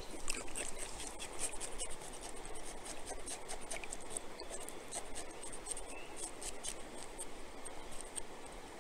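A small creek running steadily, with close scratchy scraping and many quick ticks as a knife cleans a trout.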